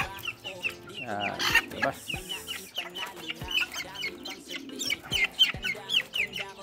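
Bantam chickens clucking, a quick string of short downward-sliding calls, several a second, while being shooed out of a wire cage.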